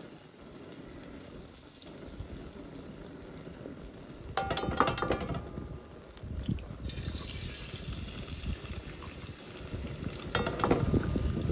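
An egg cracked on the rim of a cast iron skillet and dropped into hot bacon grease about four seconds in, then the fat sizzling. A second egg is cracked near the end.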